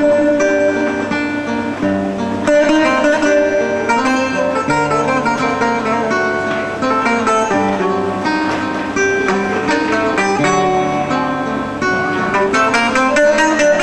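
Bouzouki playing an instrumental passage: a quick picked melody of many short notes over strummed chords and held low notes.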